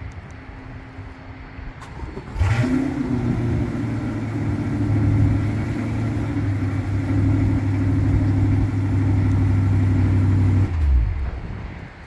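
A 2021 Chevrolet Corvette Stingray's 6.2-litre V8, remote-started from the key fob, catches about two seconds in with a sudden burst. It then runs at a steady raised idle for about eight seconds and winds down and stops near the end.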